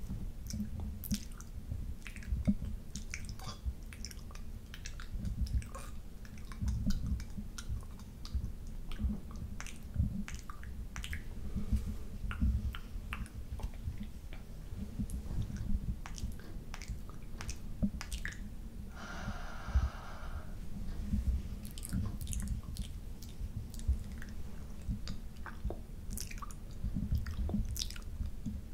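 Wet mouth sounds very close to a microphone: tongue and lips licking and smacking, with many small sharp clicks over continual low, soft thumps.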